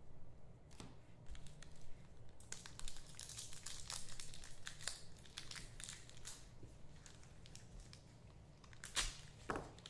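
Trading-card pack wrappers crinkling and tearing as packs are opened and cards are handled. A dense run of crackling starts about two seconds in, and a few sharp crinkles come near the end.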